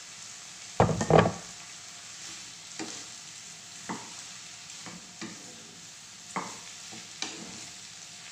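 Sliced cabbage and vegetables sizzling in a hot frying pan while stirred with a wooden spatula, which knocks against the pan about once a second. A cluster of louder clatters comes about a second in.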